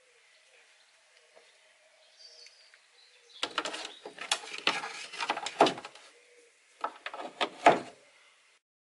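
Plastic fender clips, formed from 3 mm PVC, being handled and pushed onto a wooden gunwale: a string of clicks and knocks beginning about three and a half seconds in, then a second short burst near the end.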